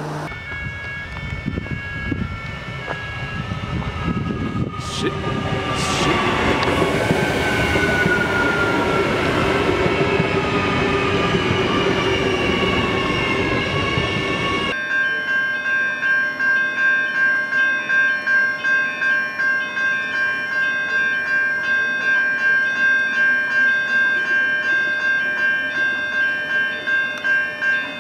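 An Adelaide Metro 4000 series electric train passing close by with a rumbling run and a motor whine falling in pitch. About halfway in it gives way suddenly to a steady ringing warning tone pulsing about twice a second.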